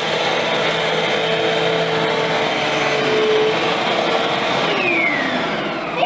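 Eureka AirSpeed All Floors upright vacuum cleaner running on carpet, sucking up crushed Cheerios; its whine falls in pitch near the end.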